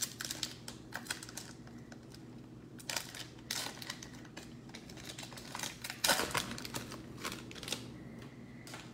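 A trading-card pack wrapper being handled and torn open by hand, crinkling and crackling in irregular bursts, loudest about six seconds in, over a faint steady low hum.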